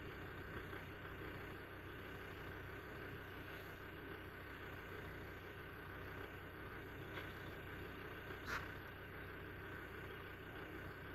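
Safari vehicle's engine idling steadily, with a brief sharp sound about eight and a half seconds in.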